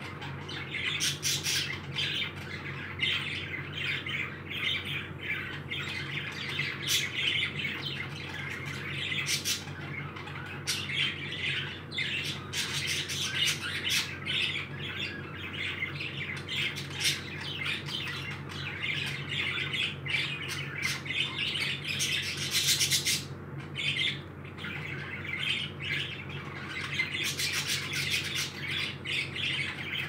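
Pet parakeets chattering and squawking without a break: a dense run of chirps and scratchy calls, louder for a moment about two-thirds of the way through.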